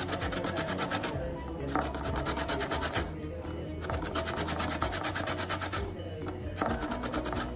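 Fresh orange peel grated on a flat metal grater: rapid, even scraping strokes in four runs broken by short pauses.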